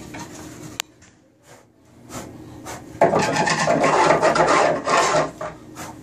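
Power drill boring a 1-inch hole through a wooden door, the bit cutting and scraping wood loudly for about two seconds from around three seconds in. A brief click and quieter handling come before it.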